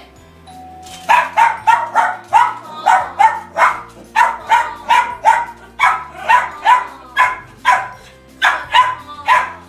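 A small dog barking rapidly and repeatedly, about two to three barks a second, starting about a second in, over background music.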